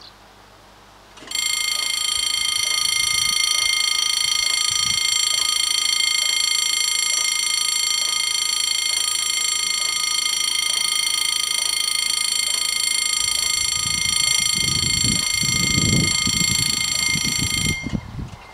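French level-crossing warning bells start about a second in and ring continuously with a steady, high-pitched electronic ring. They cut off suddenly near the end, the point at which French crossing bells stop once the barriers are down. A low rumble rises in the last few seconds.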